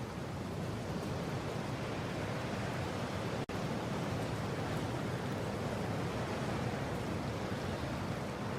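Wind blowing steadily as a low, even rush, with a split-second dropout about three and a half seconds in.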